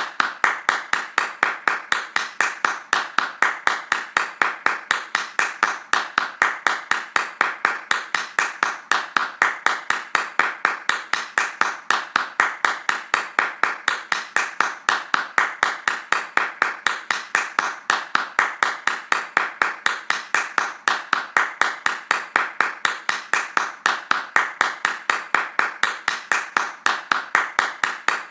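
Hands clapping fast in a steady, even rhythm of several sharp claps a second, unbroken throughout.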